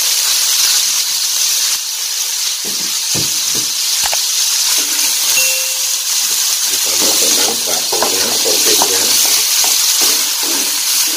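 Raw chicken pieces and garlic sizzling in hot margarine and oil in a wok, stir-fried with a wooden spatula that scrapes and knocks against the wok. The hiss is steady, and the scraping gets busier in the second half.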